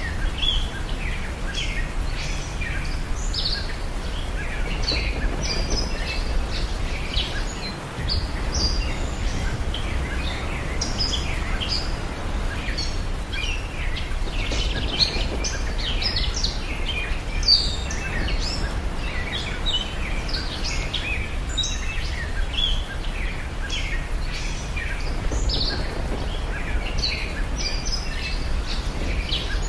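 Birds chirping and calling, many short overlapping chirps throughout, over a steady low background rumble.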